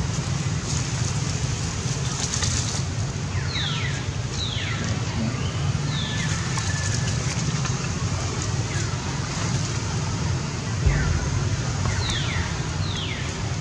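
Short high calls, each sliding quickly downward, repeat every second or two over a steady low rumble.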